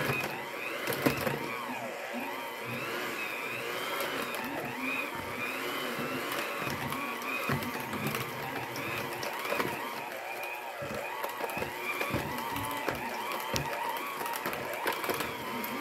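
Oster electric hand mixer running slowly, its beaters churning bananas, oil and flour in a stainless steel bowl. The motor's whine wavers as the load changes, and the beaters knock now and then against the bowl.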